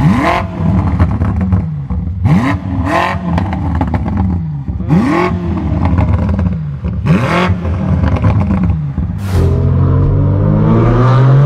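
BMW M8's twin-turbo V8 being blipped four times about two seconds apart, each rev rising and falling, with sharp cracks from the exhaust. Near the end it gives way to the straight-piped BMW M4 F82's twin-turbo straight-six, heard from inside the cabin, pulling away with its pitch rising steadily.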